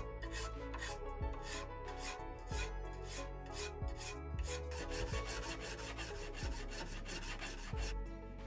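Hand metal file rasping back and forth along the sawn edge of an aluminium sheet clamped in a vise, refining the part down to its template outline. About two to three strokes a second at first, then quicker, shorter strokes from about halfway, stopping shortly before the end.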